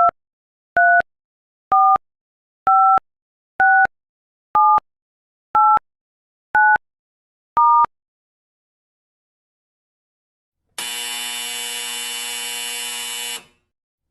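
Touch-tone telephone keypad beeps dialing a number: nine short two-note tones about one a second, the pair of pitches changing from key to key. A few seconds later comes a harsh buzzing tone lasting about two and a half seconds.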